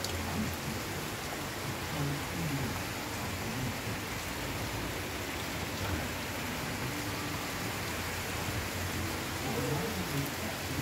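Steady rain falling, an even hiss of rainfall on the surfaces around.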